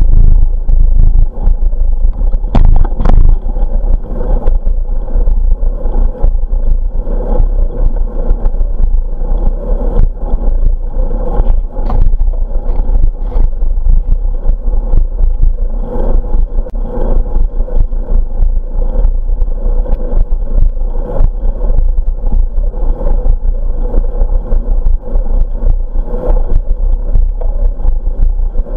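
Wind and road noise on the microphone of a camera riding on a moving bicycle: a loud, steady low rumble with frequent small clatters and knocks from the ride over asphalt, two stronger knocks about three seconds in.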